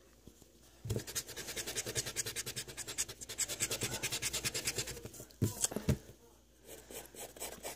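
Pencil-top rubber eraser rubbed quickly back and forth on paper for about four seconds, rubbing out pencil lines, followed by two knocks.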